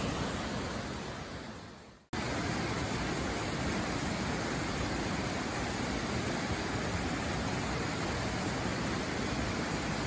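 Steady rushing of a 12 m waterfall plunging into its pool. It fades out over the first two seconds to a brief silence, then cuts back in suddenly and runs on evenly.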